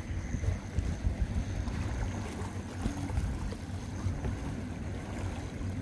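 Wind buffeting the microphone: a low, uneven rumble with gusty peaks in the first second and a half, over a faint haze of sea noise and a faint high steady whine.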